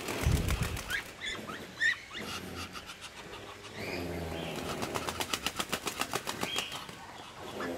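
A duck held upside down by its legs flaps its wings, struggling, in two bouts of rapid beats at about ten a second. The first bout comes right at the start and the second runs from about four and a half seconds in to nearly seven.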